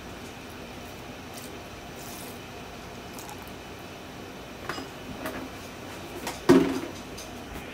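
A few clinks and knocks of kitchenware on a stainless steel mixer jar over a steady hiss. The loudest is a single sharp knock about six and a half seconds in.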